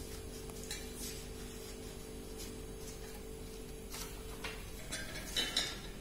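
Squares of origami paper being folded diagonally and creased by hand on a glass tabletop: soft paper rustles with light taps and clicks, and a few louder crackles near the end. A faint steady hum underneath fades out about three-quarters of the way through.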